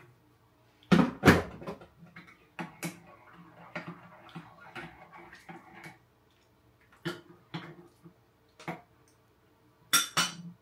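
Mugs and a teaspoon clinking: two loud knocks about a second in, then a run of light clinks as a drink is stirred in a mug, and more knocks near the end as mugs are moved on the worktop.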